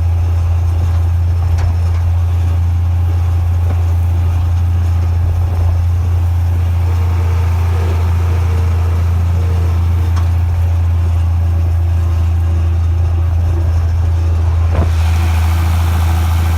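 Tractor engine running at a steady, unchanging speed, a loud low drone.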